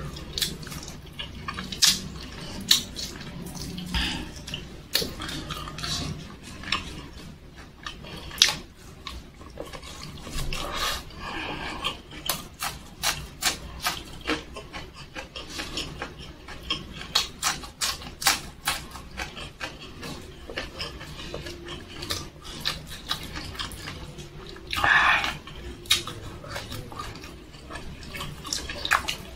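Close-up wet chewing and lip smacking of a person eating chicken and rice by hand, with many sharp mouth clicks throughout. A brief louder noisy burst comes near the end.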